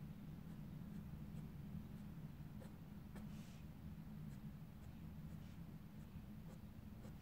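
Fine-tip ink pen scratching faintly on a paper tile in short, scattered strokes as curved lines are drawn, over a low steady hum.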